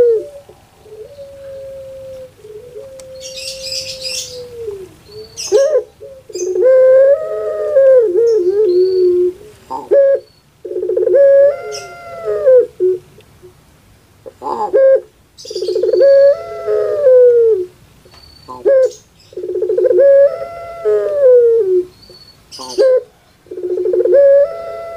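Female ringneck dove (puter pelung) cooing in a rhythmic pattern: five long coos about four seconds apart. Each coo opens with a quick flutter, then holds a tone that rises and falls away. Short sharp chirps fall between the coos.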